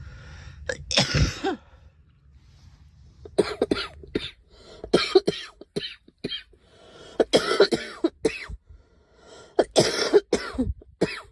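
A girl coughing in about five short fits, each made of several quick coughs in a row.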